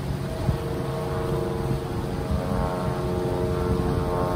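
Wind buffeting the microphone over the rushing, flood-swollen river, with a steady engine drone of several tones that comes in about half a second in and slowly grows louder.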